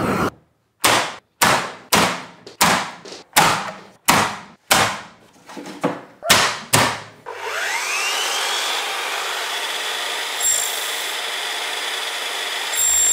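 About ten sharp knocks in quick succession. Then an electric mitre saw's motor spins up with a quickly rising whine about seven seconds in and runs steadily as it cuts a strip of wooden trim.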